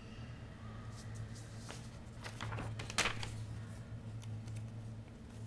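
A sheet of paper handled and folded by hand: soft rustles and light taps, with one sharper crackle about three seconds in.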